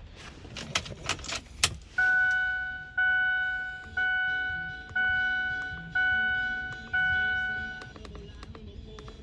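Keys jangling briefly, then the truck's dashboard warning chime sounding six times, about once a second, each strike a single bell-like tone that fades away.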